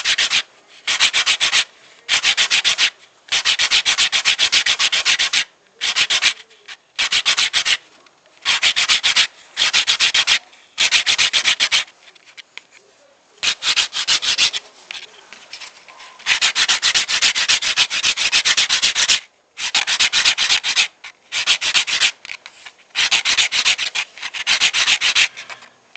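Sandpaper rubbed rapidly back and forth by hand over an olive-wood bracelet, a dry scratchy rasp in bursts of a second or two with short pauses between them, with a quieter, more broken spell about halfway through.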